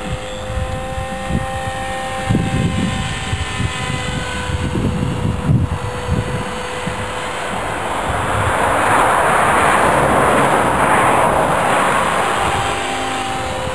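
Small electric radio-controlled helicopter (Blade 400) flying, its motor and rotors giving a steady whine whose pitch shifts slightly. A rushing rotor sound swells from about eight seconds in and fades again near the end as it passes closer. Gusts of wind buffet the microphone throughout.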